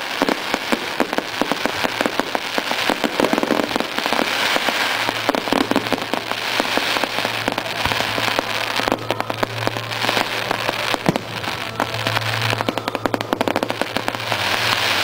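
Aerial fireworks crackling and popping in a rapid, dense stream of small bangs as crackling star shells burst overhead, with music playing underneath.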